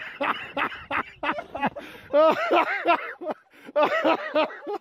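Hearty human laughter in quick runs of high-pitched bursts, breaking off briefly a little past halfway and then starting up again.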